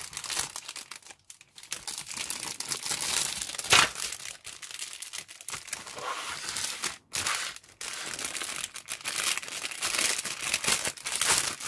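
Clear plastic bags holding grey plastic kit parts crinkling and rustling as they are handled and laid down, with one loud crackle about four seconds in.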